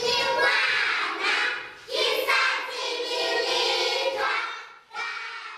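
A group of voices singing together, fading out near the end.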